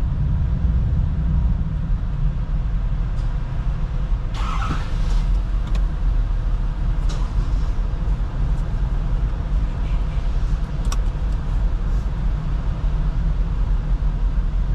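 Vehicle engine idling with a steady low rumble, heard from inside the cab. There is a brief hiss about four seconds in and a few light clicks later on.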